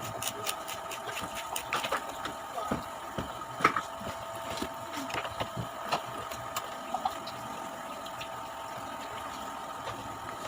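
Crunching and chewing of raw jicama slices, irregular crisp cracks that come thickly for the first few seconds and then thin out, over a steady mechanical hum.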